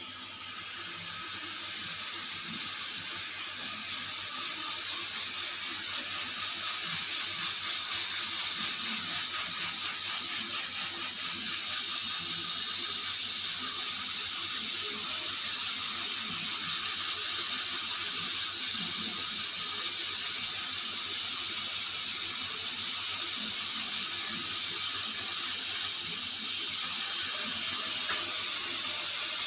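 Pressure cooker whistling: steam hissing out of the vent under pressure in a high, steady rush that builds over the first few seconds and then holds.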